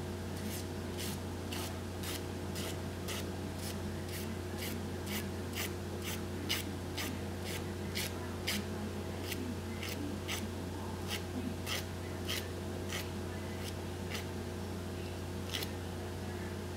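Nail file rasping in short, even strokes, about two a second, across the edge of a fingernail, typical of filing off the excess of a nail wrap; the strokes slow slightly partway through, pause, and end with one last stroke.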